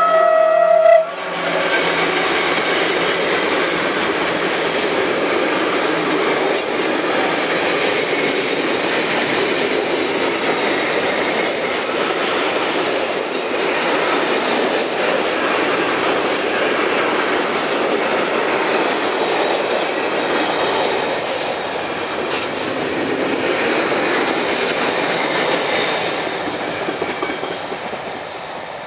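Slovenian Railways class 363 electric locomotive hauling a freight train past at close range. A horn blast ends about a second in. Then a long string of freight wagons rolls by with steady wheel-on-rail noise and clicks over the rail joints, which fades near the end.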